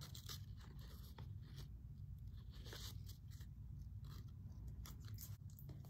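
Faint rustling and a few light clicks of craft paper being handled and pressed into place, over a steady low room hum.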